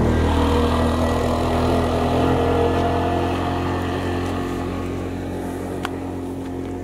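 A motor vehicle's engine running steadily, slowly fading over several seconds.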